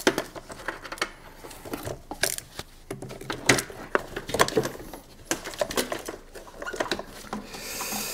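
Irregular plastic clicks, scrapes and rustling as a gloved hand works loose a large wiring-harness connector among the engine-bay wires and hoses.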